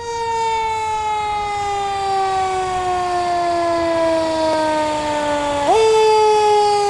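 Fire truck siren wailing: one tone falling slowly in pitch for several seconds, then jumping back up about six seconds in and starting to fall again.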